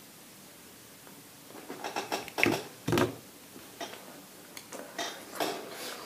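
Close-up eating sounds of a fast-food meal: after a short quiet spell, a run of crackly clicks and knocks, two louder ones about two and a half and three seconds in, then scattered smaller clicks and rustles.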